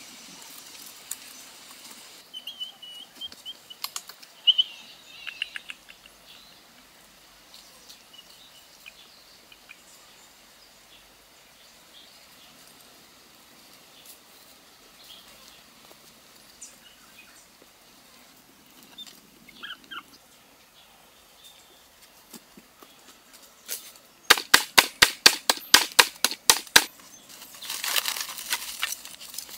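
Quiet background with a few faint high chirps in the first few seconds, then a quick, loud run of sharp chopping strikes: a machete cutting points on bamboo stakes. A short rustle of the stakes being handled among dry leaves follows at the end.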